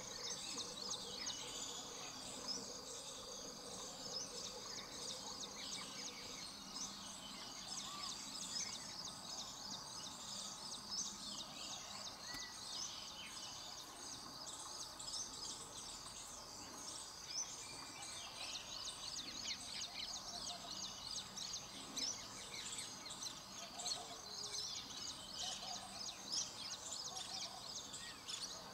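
Open-field ambience: many small birds chirping and calling at once without pause, over a faint steady background hum.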